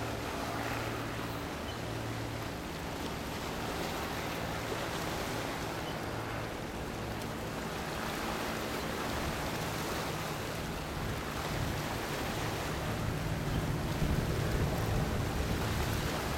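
Wind and water at the shoreline, with a steady low hum from the passing cruise ship Celebrity Reflection. Wind buffeting the microphone grows stronger near the end.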